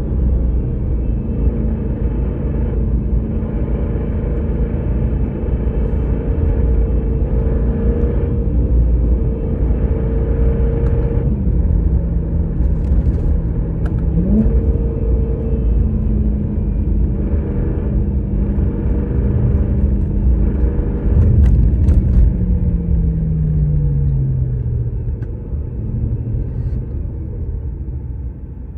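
BMW M3 E92's 4.0-litre V8 engine running at steady revs, with a brief rise in pitch about halfway through and a falling pitch as the revs drop near the end, where it gets quieter.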